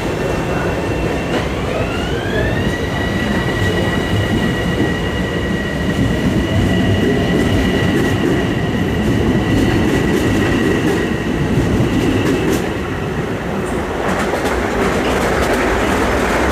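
Long Island Rail Road electric train running, heard from inside the car: a steady rumble with a high whine that glides up in pitch about a second and a half in, holds, and fades near the end as a louder clattering rail noise takes over.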